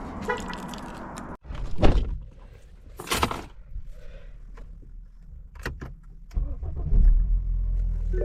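Sounds of getting into a car: a door thunks shut and keys rattle with a few knocks and clatters, then about six seconds in the car's engine starts and settles into a steady low idle.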